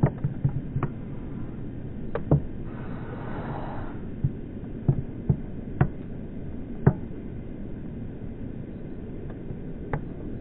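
Irregular sharp knocks and clicks, about eight of them at uneven intervals, over a steady low rumble, with a brief hiss about three seconds in.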